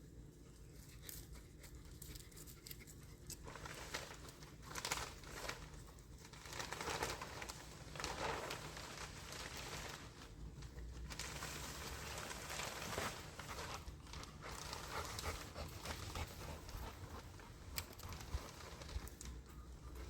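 Plastic greenhouse sheeting rustling and crinkling as it is pulled over the frame. It starts a few seconds in and comes in uneven swells.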